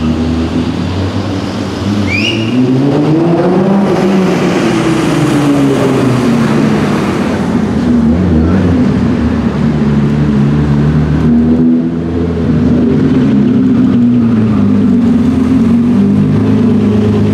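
Nissan GT-R R35's twin-turbo V6 exhaust at low speed: a rev rises and falls back a few seconds in, then the engine runs steadily at low revs, with a gentler rise in revs about two thirds of the way through.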